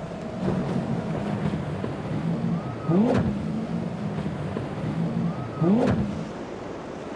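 Four Mercury 350 outboard engines on a Scout center-console boat running at speed through rough water. Twice the engine note swells and sweeps up and back down as the hull leaps off the waves.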